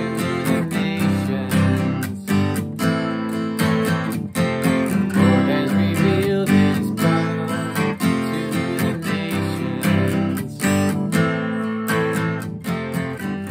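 Acoustic guitar strummed in a steady rhythm, chords ringing without singing.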